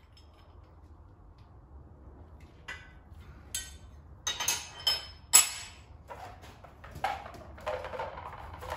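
Metal fittings and tools clinking as a pressure tester and hand pump are fitted onto a fuel hose end: a handful of sharp clicks and knocks from about three seconds in, the loudest near the middle, then softer handling clatter.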